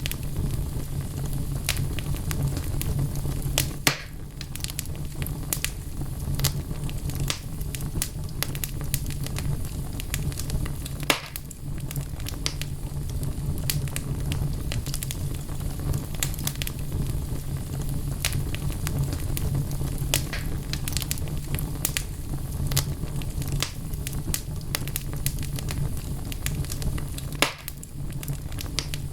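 Wood fire burning in a fireplace: logs crackling with many small sharp pops over a steady low rumble of flame. Three louder snaps stand out, about four seconds in, near the middle and near the end.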